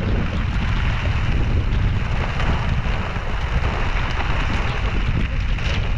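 Gusty wind buffeting the microphone with a heavy low rumble, mixed with the rustle and flap of a clear plastic sheet being pulled over a tent.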